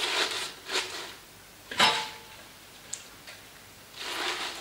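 Fresh spinach leaves rustling in short bursts as handfuls are pushed into a Thermomix TM5's stainless steel mixing bowl, with one sharp knock that rings briefly a little under two seconds in.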